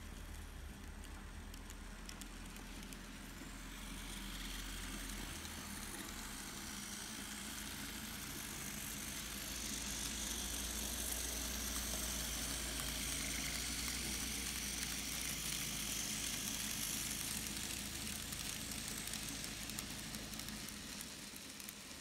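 Märklin Z-gauge Schauffele 'Ludmilla' (BR 232) model diesel locomotive running under analog control with its cars, no sound decoder fitted: a faint whir of its tiny motor and wheels on the rails over a low steady hum. It grows louder as the train passes close, about halfway through, and fades near the end.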